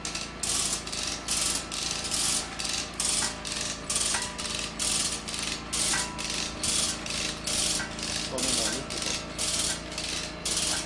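A hand tool working on a 132 kV underground power cable in steady repeated strokes, about two a second, each stroke a short rasp, started on the call to go.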